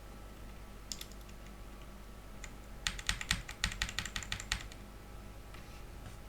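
Keys typed on an Armaggeddon Raptor MKA-11R mechanical keyboard with linear red switches: a keystroke or two about a second in, then a quick run of rapid keystrokes lasting about a second and a half.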